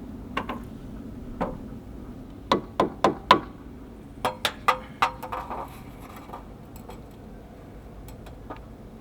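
Irregular sharp knocks and clinks of hard objects struck together, in two quick clusters of three or four hits, the second with a short metallic ring; a few faint ticks follow.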